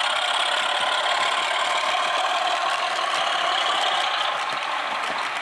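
00 gauge model locomotive running on the layout's track: a steady mechanical whirring and rattling with little bass.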